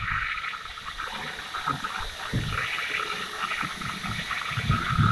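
Sewage gurgling and rushing unevenly through a corrugated hose and clear pipe as a blackwater tank is pumped out.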